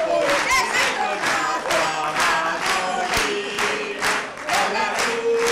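A group of voices singing together over steady rhythmic hand clapping, about three claps a second.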